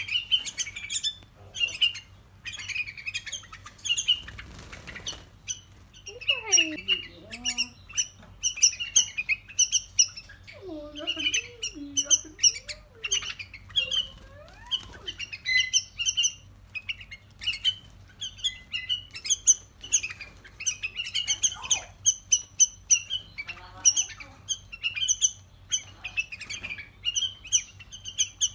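Bulbul fledglings begging for food while being hand-fed from a syringe: rapid, repeated harsh chirps from several chicks, with a brief flutter of wings a few seconds in.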